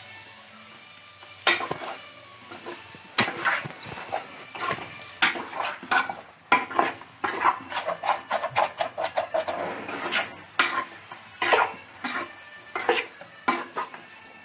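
Metal spatula scraping and clanking against a metal kadai while stirring boiled potato pieces into masala. A few separate strikes at first, then quick, irregular scraping from about five seconds in.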